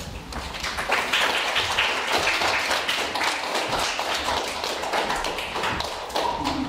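Small audience applauding a performance: many hands clapping in a dense, steady patter that eases off near the end.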